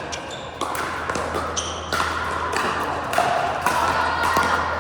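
Pickleball paddles striking the plastic ball and the ball bouncing on the court: several sharp pocks at irregular intervals.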